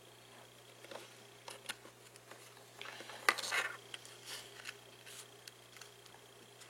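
Small handling noises from an iPod Classic and its cable: scattered light clicks and taps, with one sharper click and a short scrape about three seconds in.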